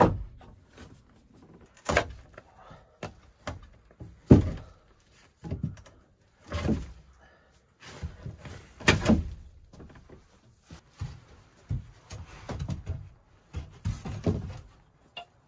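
Irregular knocks and thuds, about a dozen with quiet gaps between them; the loudest comes a little over four seconds in.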